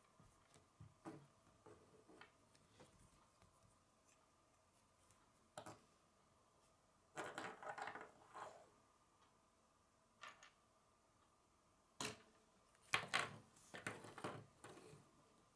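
K'nex plastic rods and connectors clicking and rattling as they are snapped together and handled, in scattered clicks with busier bursts about seven seconds in and near the end.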